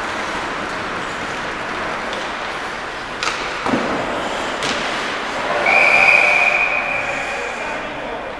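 Ice hockey rink sounds: a few sharp knocks of sticks and puck, then a referee's whistle blown in one long blast that fades out, over steady rink noise.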